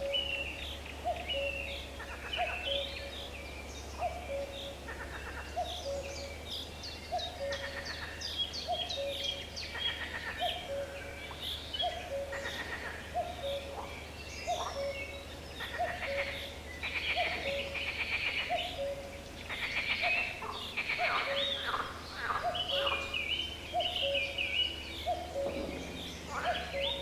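Outdoor birdsong: many short high chirps and quick trills, thicker in the second half. Beneath them a low short note repeats steadily about once a second, over a faint steady low rumble.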